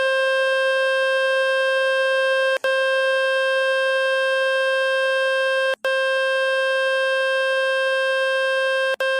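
Speaker-cleaning tone from the Fix My Speaker website: a loud, steady, buzzing tone meant to shake water, dust and dirt out of the phone's speaker. It cuts out very briefly three times and starts again at once.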